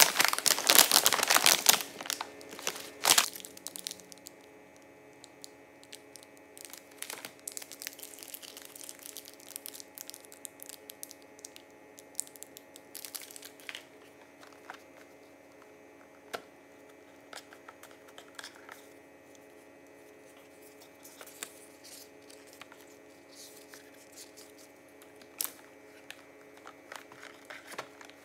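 Crinkly plastic snack bag of wrapped chocolates handled loudly for the first few seconds. Then occasional soft rustles and taps as wrapped candy bars and a cardboard gift box are moved on a stone countertop.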